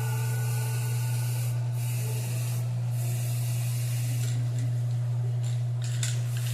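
Paint spray gun hissing as white paint is sprayed onto a refrigerator, the spray thinning briefly a few times. Under it runs a steady low machine hum.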